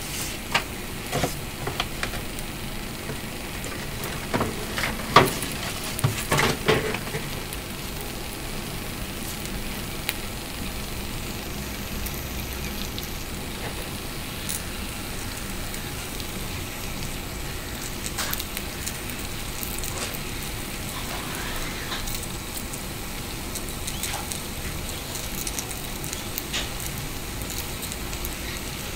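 Mochi rice cakes cooking in a frying pan: a steady sizzle with scattered crackles and pops, and a cluster of louder pops about five to seven seconds in.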